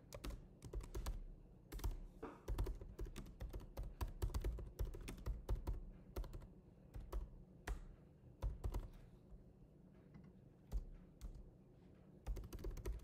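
Typing on a computer keyboard: irregular bursts of keystroke clicks with short pauses, and a longer pause a little past the middle.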